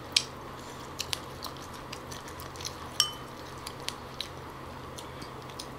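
Close-miked eating with chopsticks: quiet chewing of steamed fish broken by scattered sharp clicks, and one brief ringing clink of chopsticks against the dish about three seconds in.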